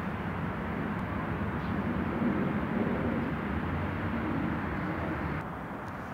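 Steady outdoor background rumble, with no distinct event, that drops to a quieter, duller hum about five and a half seconds in.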